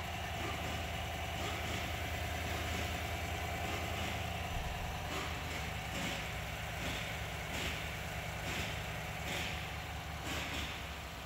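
2019 Chevrolet Silverado engine idling steadily with a low, even hum, running again after its high-pressure fuel pump was replaced.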